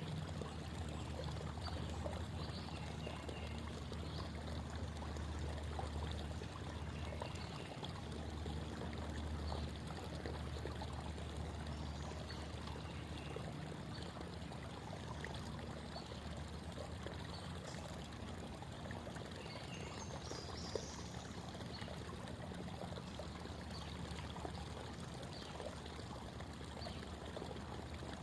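Creek water babbling and flowing steadily over stones.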